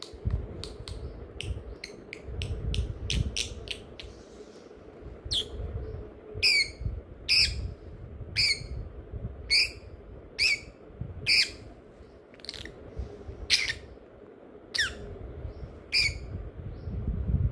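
A bird calling: a quick run of clicks, then a series of sharp calls, each dropping in pitch, about once a second.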